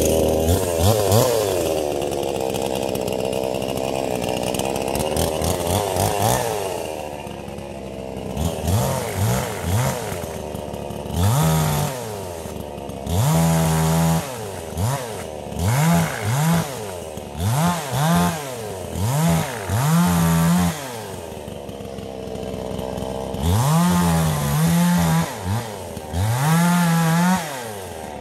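Two-stroke gasoline chainsaw running at high revs for the first several seconds, then revved up and down over and over, its pitch climbing and dropping about a dozen times.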